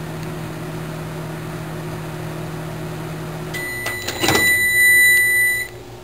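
Household microwave oven running with a steady hum while heating an aluminium can to melt it. About three and a half seconds in the hum drops as the timed cycle ends, and a long beep sounds for about two seconds, with a sharp click partway through.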